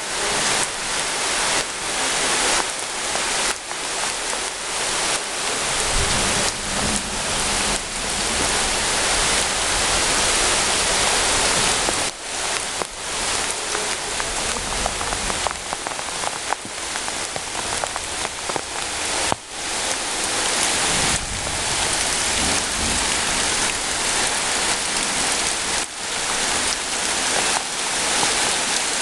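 Heavy rain pouring down steadily, a dense hiss of falling drops, with a brief low rumble about six seconds in.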